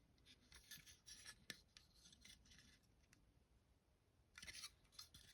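Faint rustling and scraping of plastic model-kit parts trees being handled, in a cluster near the start and another near the end, with a light click about one and a half seconds in.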